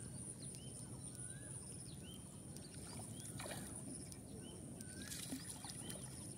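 A bird calling over and over, a short up-and-down note about once a second, over a steady thin high-pitched whine and low outdoor background noise. There are a couple of brief faint rustles midway through.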